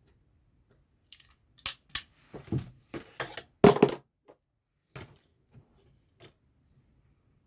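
Handling noises from embroidery work: a cluster of sharp clicks and short rustles over about five seconds, loudest a little past the middle, then a few softer taps.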